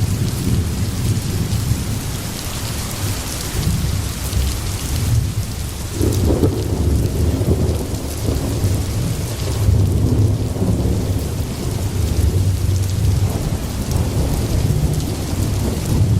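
Steady heavy rain with low rolling thunder rumbling underneath; the high hiss of the rain thins out about ten seconds in while the rumble goes on.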